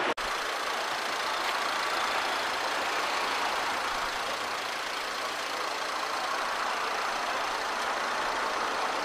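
Steady running noise of an idling vehicle engine, even and unchanging.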